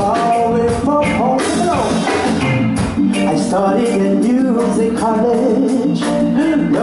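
Male singer performing a reggae song live with a full band: drums, electric guitar and bass guitar under a sung melody.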